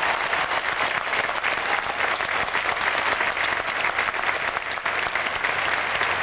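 Large crowd applauding, many hands clapping at once in a dense, steady patter.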